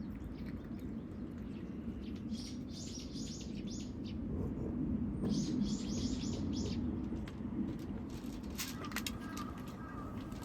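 Small bird chirping in two quick runs of five or six high notes, a couple of seconds apart, over a steady low background hum.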